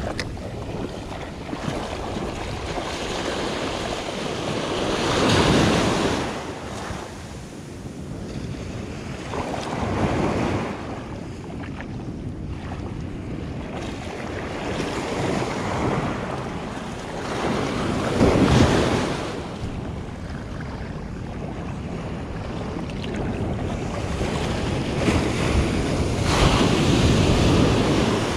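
Low surf breaking and washing up a sandy beach in four slow surges, the loudest about two-thirds of the way through, over a steady hiss of water.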